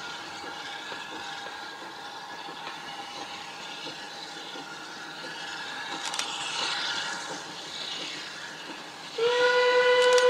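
Steam locomotive running with its train, then its whistle blown about nine seconds in: one loud, steady note held for a second or two.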